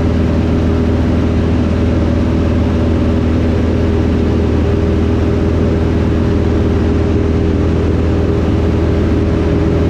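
Van's RV-6A light aircraft's piston engine and propeller droning steadily in flight, heard from inside the cockpit.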